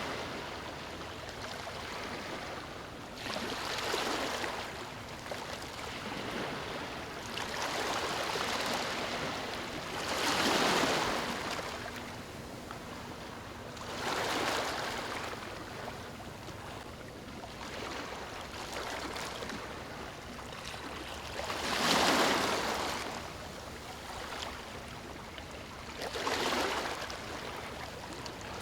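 Small waves washing in, with a swell of rushing water every few seconds over a steady background wash.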